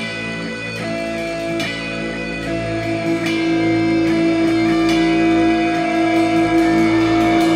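Black metal music: a guitar passage of sustained chords changing about once a second, with a long held note from about three seconds in, growing slightly louder.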